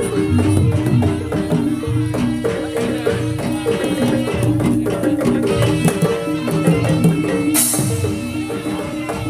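Live jaranan gamelan music: drums beating under repeating notes of pitched metal percussion, with one sharp crashing hit about seven and a half seconds in.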